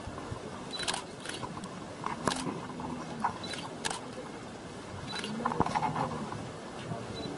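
Camera shutters clicking repeatedly, single and in quick pairs, some with a short high beep. A brief low animal call sounds about two and a half seconds in and again near six seconds.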